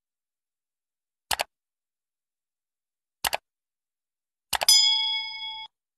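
Sound effects from a like-and-subscribe animation: two mouse clicks about two seconds apart, each a quick double tick, then a third click followed at once by a notification-bell ding that rings for about a second and cuts off abruptly.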